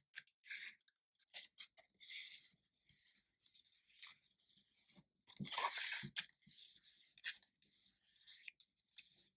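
Paper and cardstock being handled and pressed together, with irregular crinkling and rustling; the loudest rustle comes about five and a half seconds in.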